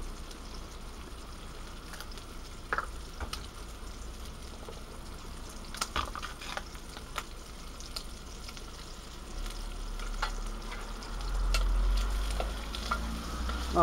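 Slices of ham mettwurst frying in a small thin pan on a portable gas cooker: a steady sizzle with scattered sharp clicks. Near the end the pan is handled and the slices turned, adding a low rumble.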